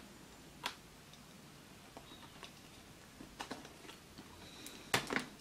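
A few faint, scattered clicks and taps from handling a smartphone's cardboard box, with the sharpest pair near the end.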